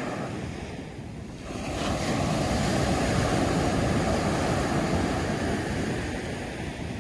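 Sea waves breaking on a sandy beach: the surf swells up about two seconds in, holds, then washes back and slowly fades.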